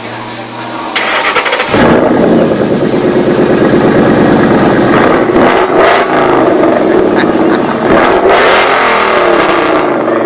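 Ford Mustang LX fox-body engine under throttle on a chassis dyno: it runs at a steady low note, then about a second and a half in opens up into a loud, sustained high-load run that holds to the end.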